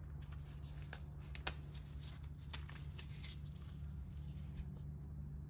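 Faint handling of a car oxygen sensor: a few light, sharp clicks and rustles, the loudest about a second and a half in, over a steady low hum.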